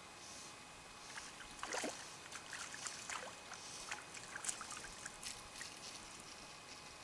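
A hooked brook trout splashing at the surface of a still pond: a flurry of irregular splashes starting about a second in and dying down near the end.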